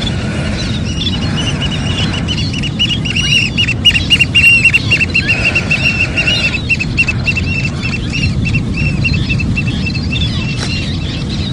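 Birds chirping in fast, repeated high notes, loudest a few seconds in, over a steady low rumble.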